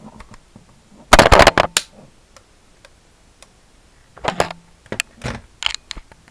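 Plastic magazine being pushed into a spring-powered airsoft CZ Scorpion vz61 and locking, with a loud clatter of clicks about a second in. Further clicks of plastic parts follow about four to six seconds in.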